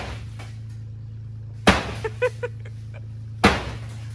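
Sledgehammer blows on a stripped BMW E36 body shell: two heavy metal impacts about two seconds apart, with a few short clinks and rattles after the first.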